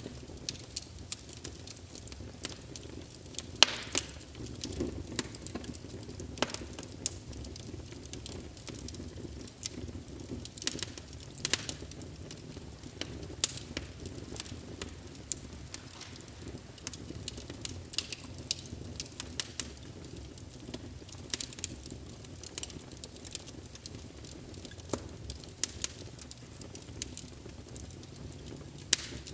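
Wood fire burning in a fireplace: a low steady rumble of flames with irregular crackles and sharp pops of burning logs, a few louder snaps scattered through.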